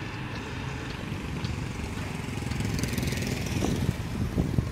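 Small engine running steadily with a low putter while riding along a street, with a few low knocks near the end.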